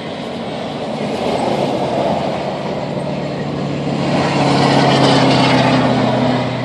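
A big truck going past: engine and tyre noise swells, peaks about five seconds in with a steady low engine drone, then starts to fall away.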